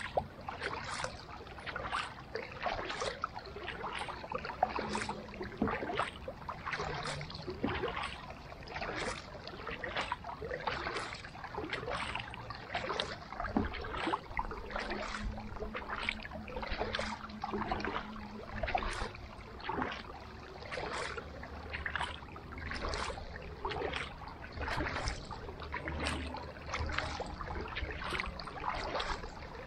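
Kayak paddling: the blades of a carbon double-bladed paddle dipping into the water in a steady rhythm, about one splash a second.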